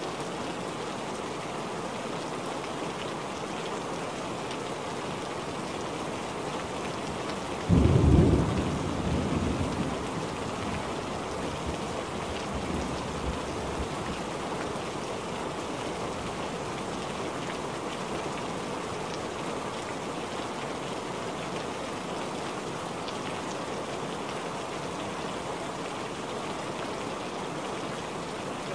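Steady rain falling on a wet surface. About eight seconds in, a sudden loud clap of thunder breaks in and rumbles away over about two seconds, with a fainter rumble a few seconds later.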